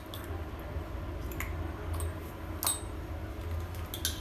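Chrome handle of a concealed wall stop valve being turned by hand, giving a few light metallic clicks and ticks over a steady low hum.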